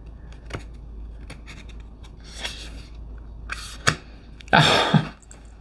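Tarot cards being handled: cardstock sliding and rubbing, with small clicks and taps, and a louder rustle about four and a half seconds in.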